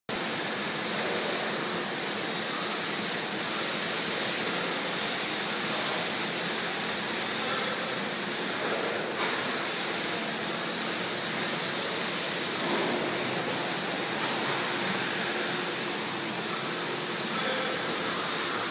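Steady, even hiss of a Boumatic rotary milking parlour's machinery running.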